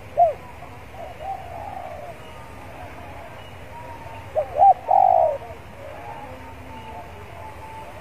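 Spotted dove cooing: a short note at the very start, a fainter coo a second or so in, then about four seconds in a loud phrase of two short arched notes followed by a longer coo.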